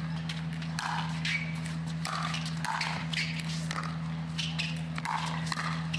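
Pickleball paddles hitting a hard plastic ball back and forth in a fast rally: a run of sharp pops, roughly two a second and unevenly spaced, over a steady low hum.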